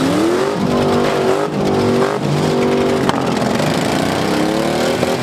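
Demolition derby pickup truck engines revving hard: the pitch climbs in the first second and holds high with a couple of brief dips, then climbs again about four seconds in. A short sharp knock about three seconds in.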